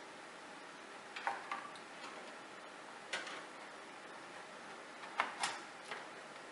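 Scattered sharp clicks and knocks, about six in uneven clusters, of a graphics card being handled and fitted into a computer case.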